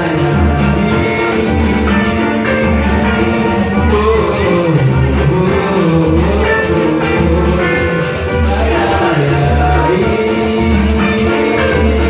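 Latin-style music with a steady bass beat, guitar and singing.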